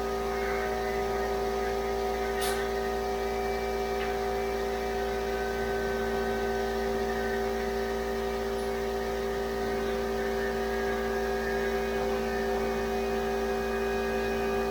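Steady machine hum made of several constant tones over a light hiss, with a sharp click about two and a half seconds in.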